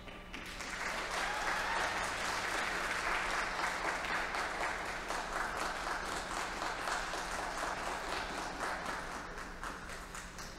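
Small audience clapping in applause at the end of a figure skating program. The clapping rises within the first second, stays full for several seconds, then thins out toward the end.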